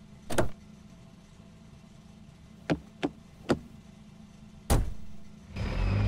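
Car door sounds: a click, a few light clicks of the handle and latch, then the door slammed shut with a loud thump. Near the end the car moves off, engine and road noise rising.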